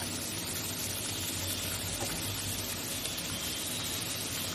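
Steady sizzling hiss of an onion-tomato masala paste frying in oil in a kadai, with a faint low hum underneath.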